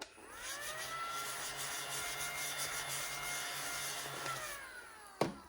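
A small electric motor spins up, runs steadily for about four seconds and winds down, followed by a sharp click near the end.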